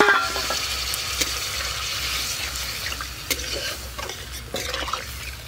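Metal spatula stirring a potato and fish curry in an aluminium wok, with light clicks and scrapes against the metal, over a sizzle from the freshly added spice water hitting the hot fried spices. The sizzle fades as the liquid settles.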